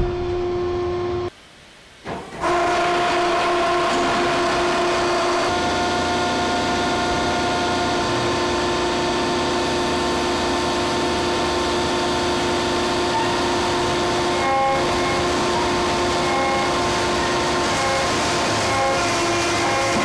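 Commercial sawmill machinery running steadily: a loud hum with several held tones over a noisy bed, broken by a brief drop to quiet about a second and a half in. Later, a higher tone pulses on and off every second or so.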